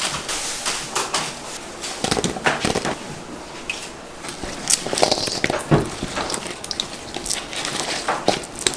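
Food preparation sounds: irregular clicks, taps and clatter of utensils and dishes being handled, over steady room noise.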